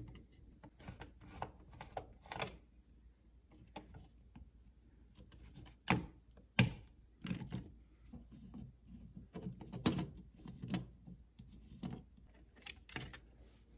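Scattered small clicks, taps and scrapes of a screwdriver and fingers working at the screw terminals of a plastic thermostat wall plate as the wires are loosened and pulled free. A couple of sharper clicks come about six seconds in.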